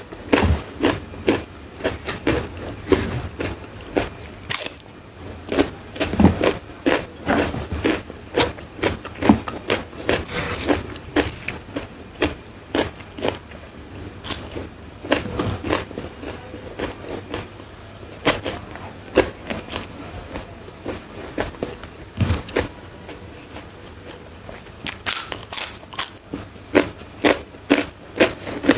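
A person chewing and crunching crisp food close to the microphone, with sharp crackles and mouth clicks. Near the end the chewing speeds up into a quick, even run of about three bites a second.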